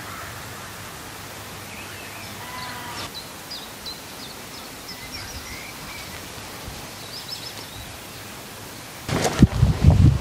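Steady outdoor background noise with birds chirping now and then. About nine seconds in, boots start tramping loudly onto a heap of straw-laden manure, with irregular squelching crunches.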